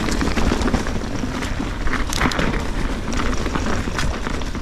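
Mountain bike descending a rough trail at speed: a steady rush of tyre and trail noise with frequent short knocks and rattles from the bike over rocks and roots. Wind buffets the camera microphone.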